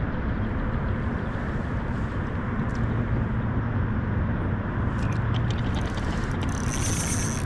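Steady outdoor rushing noise with no speech. A quick run of light clicks starts about five seconds in.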